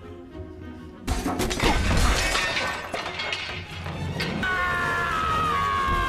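Film soundtrack: music with a sudden crash, like something breaking, about a second in. Near the end a held high tone slides downward.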